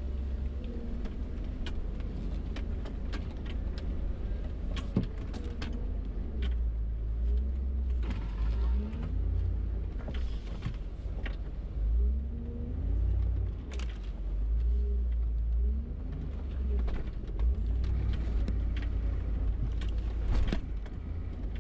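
Off-road 4x4's engine running at low speed, its revs rising and falling as it crawls over a rocky trail, with frequent knocks and rattles throughout.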